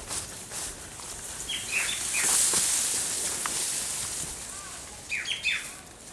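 Bird calling outdoors: two short runs of quick falling chirps, a few seconds apart, over a rustling hiss that swells in the middle.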